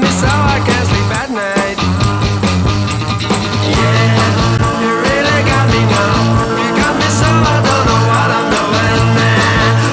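Background rock music with a repeating bass line.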